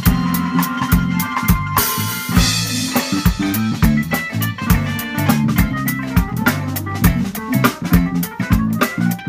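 Band playing live: a Pearl drum kit drives a busy beat, with a cymbal crash about two seconds in and quick fills in the second half, over digital piano chords and a low bass line.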